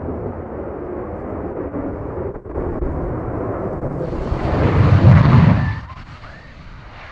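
F-16 fighter jet's engine noise as it climbs away after take-off: a deep rumble that swells to its loudest about five seconds in, then drops off sharply near six seconds.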